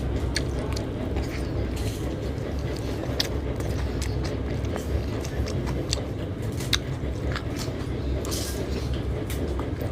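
Close-up eating sounds: scattered short wet clicks and smacks of chewing and lips, over a steady low background hum.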